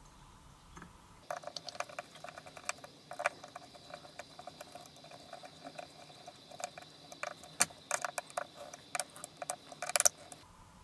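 A screwdriver driving small screws into the aluminium pump cover of a Briggs & Stratton carburetor makes irregular metallic clicks, ticks and scrapes over a faint steady high hiss. The sound starts about a second in and stops abruptly shortly before the end.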